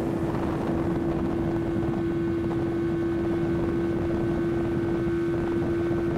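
Outboard motor running steadily at speed as the boat is under way, a constant drone with an unchanging pitch over the rush of wind and water.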